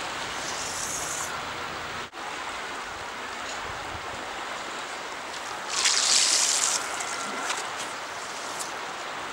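Steady rush of the flowing river, with a brief dropout about two seconds in. About six seconds in, a loud hiss lasting about a second as the fly line rips off the water during a Skagit-style Snap-T Spey cast.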